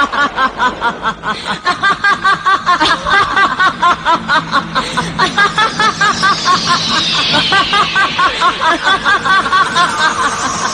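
A person laughing in a long, high-pitched run of rhythmic 'ha-ha' pulses, about four a second. From about six seconds in, and again near the end, a falling whistling glide sounds like a sound effect.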